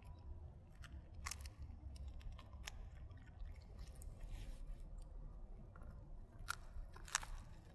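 A dog gnawing dried duck bones: scattered sharp crunches and cracks as its teeth bite through the bone, coming closer together and louder near the end.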